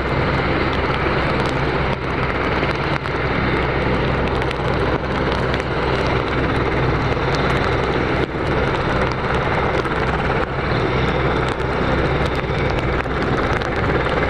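Military helicopter flying over, its rotor and engines making a steady noise.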